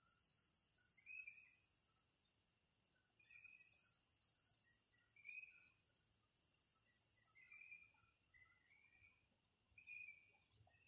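Faint outdoor ambience of insects and birds. A very high insect buzz comes and goes in stretches of about a second over a steady thin insect trill, with short bird chirps every second or two and one sharper, louder high chirp just past halfway.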